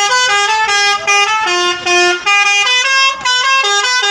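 Bus telolet horn, a multi-tone musical horn, playing a fast tune of short held notes that jump up and down in pitch every fraction of a second.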